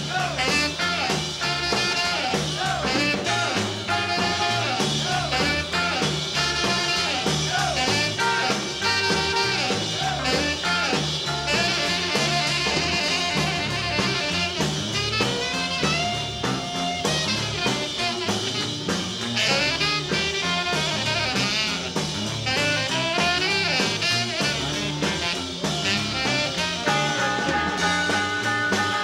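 Live 1950s rock and roll band playing an instrumental passage, with drum kit and horns over a steady, driving beat.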